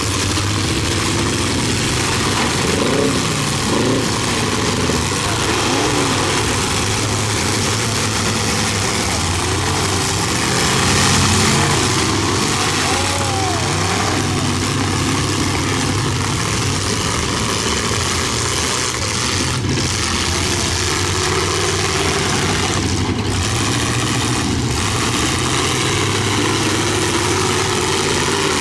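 Engines of several demolition derby cars running and revving together, their pitch rising and falling again and again over a steady din.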